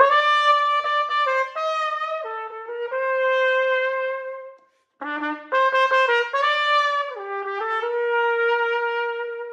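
Solo trumpet playing a slow, lyrical melody in its middle register, in two phrases with a short breath between them about five seconds in. Each phrase steps down and ends on a long held note.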